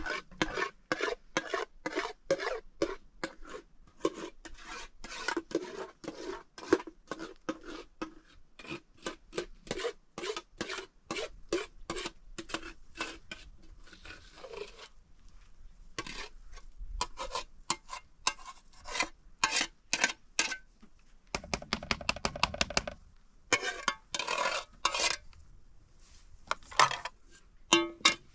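Repeated rubbing and scraping strokes on metal cookware by hand, about three a second in long runs broken by short pauses, with a denser, heavier rattle a little past the middle.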